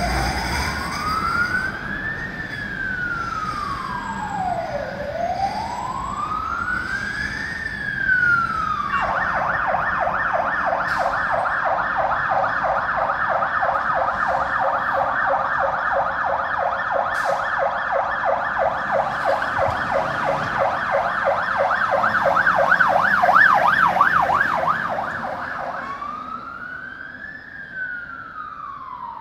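Fire engine siren sounding a slow rising-and-falling wail. About nine seconds in it switches to a fast yelp, which grows louder for some fifteen seconds. It returns to the slow wail, fading, near the end.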